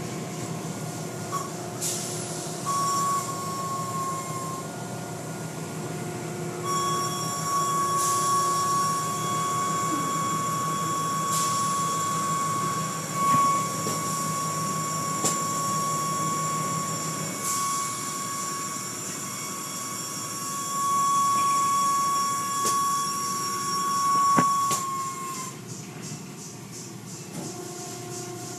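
Car wash machinery running. A steady high-pitched whine starts several seconds in and slides down and stops near the end, over a constant lower hum and scattered clicks.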